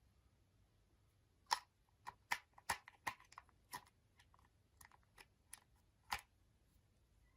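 Slime being pressed and worked by hand, giving an irregular string of small sharp clicks and pops. They start about a second and a half in and go on for about five seconds, the first pop the loudest.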